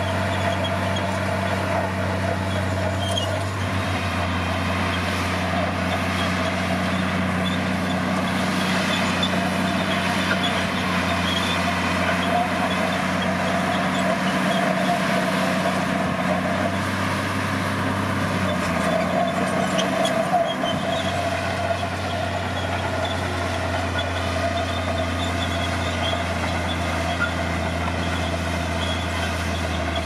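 Komatsu D60P bulldozer's diesel engine running steadily under load as the blade pushes a pile of soil, its note shifting slightly a few times.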